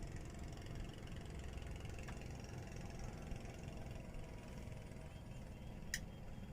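A steady low rumble with a faint hum, and one sharp click near the end.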